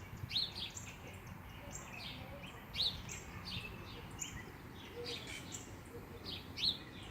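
Several songbirds chirping and singing, short high notes and quick rising and falling calls overlapping, with a faint steady low rumble of background noise underneath.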